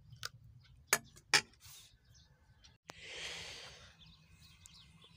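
A metal spoon clinks twice, sharply, against a ceramic plate of chicken curry, with a few lighter taps. Later a soft rush of outdoor air noise lasts about a second.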